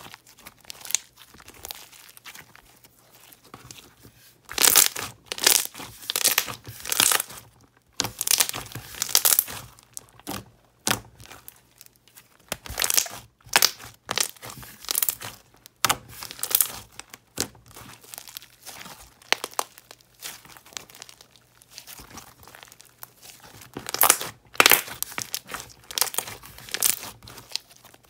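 Thick white glue-base slime with mixed beads, stretched, folded and pressed by hand, making irregular bursts of sticky crackling and tearing sounds with short pauses between handfuls.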